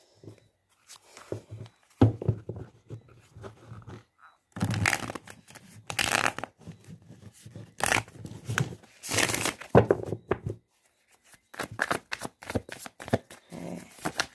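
A Light Seers Tarot deck being shuffled by hand, the cards rasping and flapping in several bouts with short pauses. The deck is stiff.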